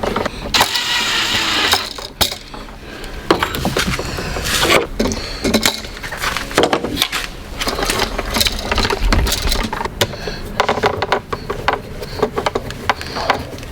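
Hands wiring an electrical wall receptacle: a run of clicks, taps and small knocks as wires are pushed into the outlet and a screwdriver works its terminal screws, with a scraping rustle of wire and cable about half a second in.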